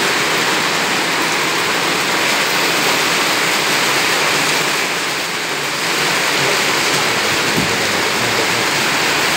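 Heavy rain falling steadily on a concrete yard: a dense, even hiss of drops splashing on the wet slabs, dipping slightly about halfway through.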